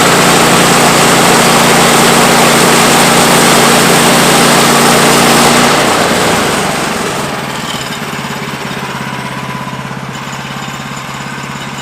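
Portable band sawmill's gas engine running at high speed with the blade sawing through a log. About six seconds in the cut ends and the engine drops to a lower speed, running noticeably quieter.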